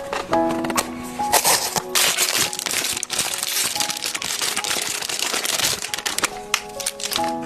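Plastic blind-box wrapping crinkling and rustling as it is handled and torn open, a dense crackly run from about a second in until near the end, over background music.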